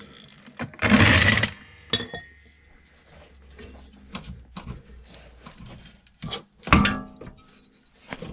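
Metal clinks and knocks from tools and rear suspension parts as the suspension arm is lowered to free the coil spring. There is a short loud rush of noise about a second in, a clank that rings briefly just after, and another loud knock near the end.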